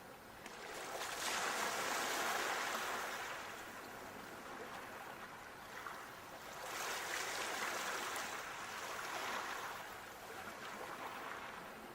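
Sea waves washing onto the shore and drawing back. Two swells of surf come in, one rising about a second in and another about halfway through, each fading away again.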